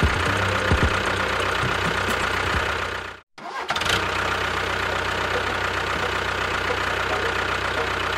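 Steady engine-like running sound, as of a tractor engine, with strong low hum. It cuts out for a moment a little past three seconds in, then runs on unchanged.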